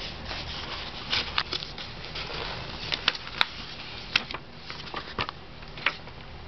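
A baby's hands patting and handling the pages of a picture book: irregular soft taps and paper rustling, with a few sharper slaps.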